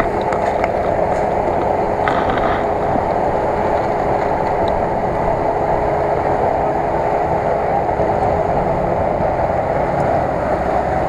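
Off-road vehicle engines running steadily under load, with a constant thin whine, as a Toyota Land Cruiser and a quad bike crawl through flooded marsh.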